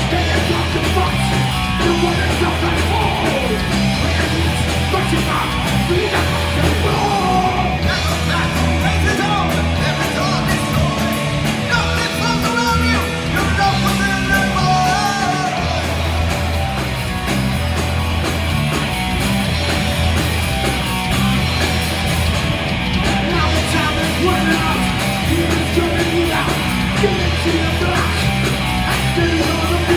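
Live heavy metal band playing loud, with distorted electric guitars, bass and a drum kit driving a steady pulsing beat.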